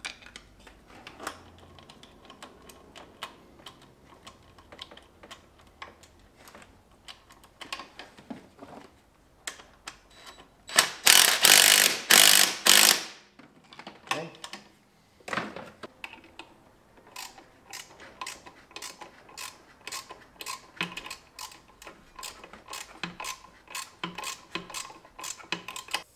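Ratchet wrench clicking in short runs while the A/C compressor mounting bolts are turned in, with scattered metallic taps of tools against the engine. A few seconds of loud harsh noise come about halfway through, then a long run of quick, even ratchet clicks.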